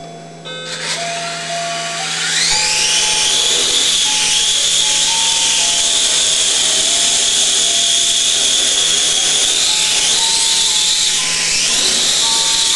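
X-UFO quadrotor's electric motors and propellers spinning up with a rising whine over the first couple of seconds, then a steady high whine while it hovers. The pitch dips and rises a few times near the end as the throttle changes. A simple tune plays underneath.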